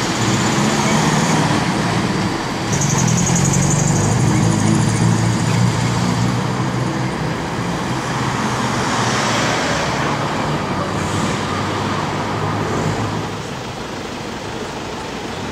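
Melbourne E Class low-floor tram running past on a curve with a steady motor hum. Its wheels squeal high and thin on the curved rails in two short spells in the first few seconds. Street traffic runs underneath.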